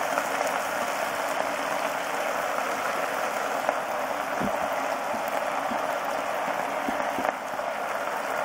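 A little water and oil boiling in a non-stick pan under a heap of fresh moringa (drumstick) leaves, a steady hiss, with a few faint soft taps as more leaves are tipped in.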